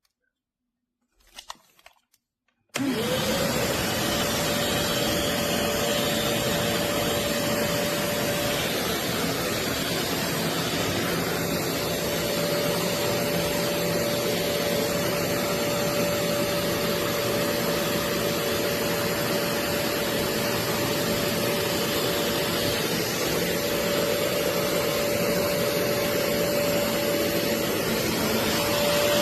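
BISSELL Little Green portable carpet and upholstery cleaner's motor switching on about three seconds in, its whine rising quickly to a steady pitch, then running steadily.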